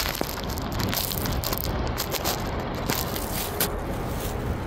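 Steady outdoor background noise: a low rumble with scattered faint crackling clicks.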